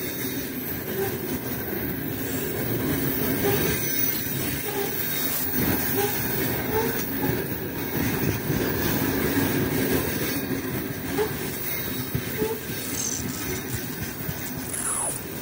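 Freight train's gondola wagons rolling past at close range: a steady rumble of steel wheels on the rails, with brief squeaks here and there.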